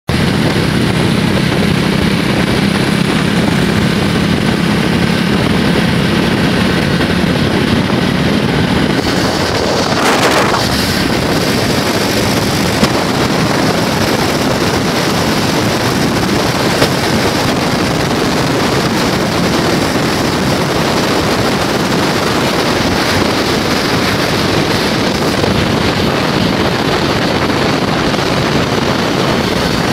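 Steady engine noise mixed with heavy wind buffeting the microphone, with a brief rise and fall in pitch about ten seconds in.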